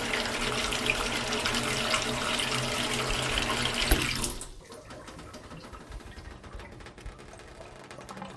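Bathtub faucet running full, then shut off about four seconds in with a short knock. What remains is the quieter, uneven sound of water draining from the tub.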